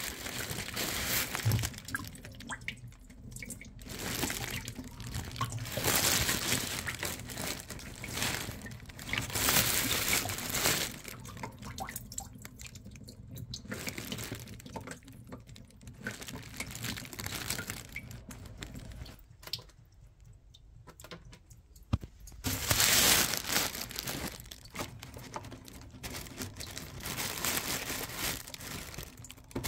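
Water draining out of a central heating system, running and splashing in spurts a few seconds long with quieter gaps between, with crinkling handling noise.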